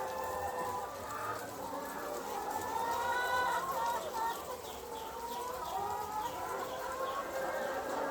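A flock of commercial laying hens clucking and calling together, many voices overlapping steadily.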